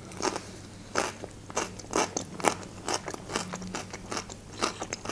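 Mouth chewing a slice of fresh cucumber: irregular crisp crunches, a few a second.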